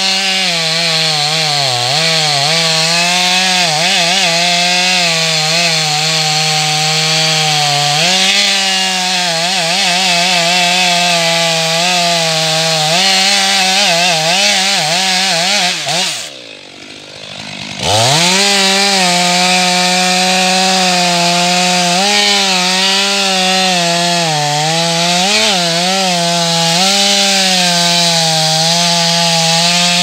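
Stihl MS 500i fuel-injected two-stroke chainsaw at full throttle, cutting into the trunk of a large pine, its pitch wavering under load. About 16 seconds in it drops off to idle for a second and a half, then revs back up and cuts on.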